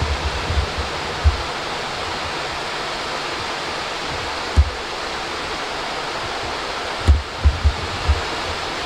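Steady rushing hiss of wind across the microphone, with short low buffeting thumps in the first second or so, once in the middle, and several times near the end.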